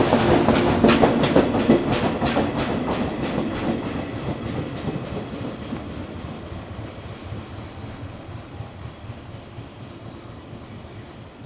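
JR 113-series electric train pulling away, its flat-spotted wheel banging out a loud repeated beat over the running noise. The knocks fade after about four seconds and the train dies away into the distance.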